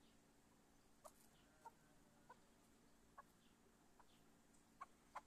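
Chukar partridge giving faint, short call notes, widely spaced at first and coming quicker near the end.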